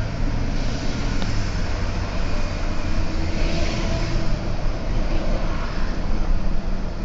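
Steady car engine and road noise: a constant low rumble with tyre hiss while driving.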